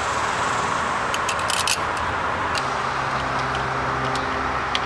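Light metal clicks and clinks of a small socket, extension and bolt being handled as a coil-pack hold-down bolt is started into the engine. A quick run of clicks comes about a second and a half in, with single clicks later. A steady background noise runs under it, joined about halfway by a low hum.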